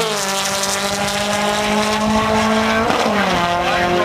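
Air-cooled VW Beetle drag car engine running hard under load. Its pitch drops sharply right at the start and again about three seconds in, like upshifts, and holds nearly steady in between.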